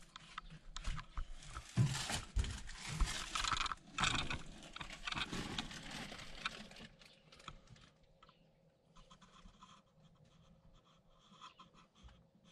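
Cardboard boxes and plastic bags rustling, with several dull thumps as the boxes are handled and moved, for about the first seven seconds. After that there are only sparse, soft rustles.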